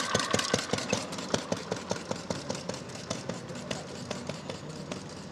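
1912 Bradbury 500cc veteran motorcycle engine running as the machine rides away, its exhaust beating in a quick, even run of pops that grows fainter.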